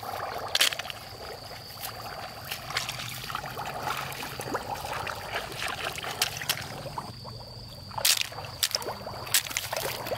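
Shallow paddy water splashing and trickling around wading feet and hands picking snails from the mud, with sharp clicks as handfuls of snails are tossed into a bamboo basket. The loudest clicks come about half a second in and again near the end.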